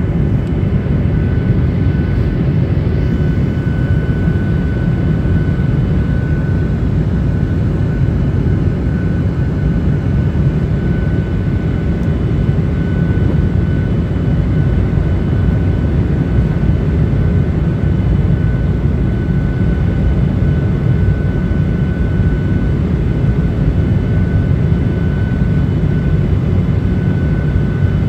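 Cabin noise of a Boeing 737-800 heard from a window seat over the wing during the descent to land: a steady, unchanging low rumble of its CFM56-7B engines and airflow, with a faint steady high tone above it.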